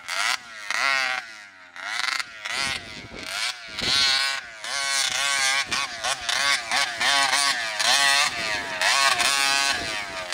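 RCMAX 80cc two-stroke gas engine of a 1/5-scale RC monster truck revving up and down over and over, its pitch rising and falling with each burst of throttle as the truck drives. The engine is still on its first tank of fuel, being broken in.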